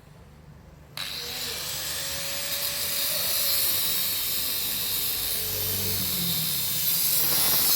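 Electric arc welding on a motorcycle seat frame: the arc starts suddenly about a second in and runs as one steady, loud sizzling hiss for a single continuous bead, cutting out right at the end.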